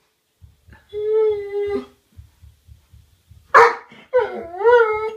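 Doberman whining, anxious at the balloons around him: a steady high whine about a second in, a short sharp bark at about three and a half seconds, then a wavering whine that rises and falls near the end.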